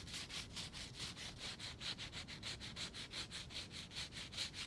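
Fine 320-grit sandpaper rubbed by hand back and forth over a wooden chair leg in quick, even strokes. It is smoothing dried wood filler flush around a plug.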